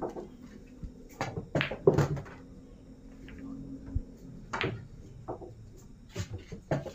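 Pool balls clacking and knocking on the table during play: about six sharp knocks, the loudest about two seconds in.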